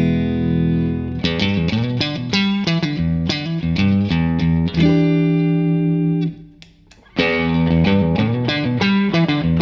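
Electric guitar played through an overdrive pedal into a clean amplifier, in a pedal-stacking demonstration: a held chord, picked notes and another held chord, a brief pause about two-thirds of the way in, then a run of picked notes.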